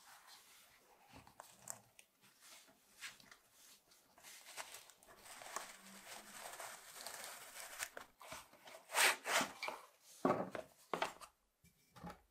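Irregular scraping and crunching on the rotten wooden body of an old hand plane, with a few louder strokes about nine to eleven seconds in.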